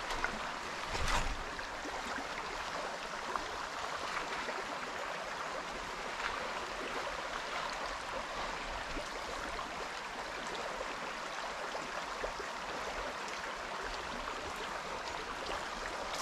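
A small spring creek running over its stony bed, a steady watery hiss. A brief thump about a second in.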